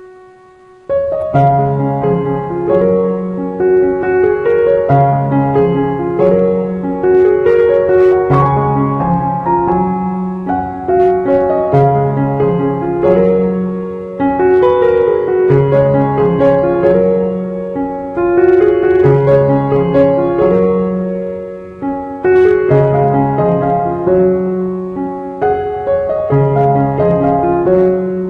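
Background piano music: sustained notes over a repeating bass figure, after a brief pause of about a second at the start.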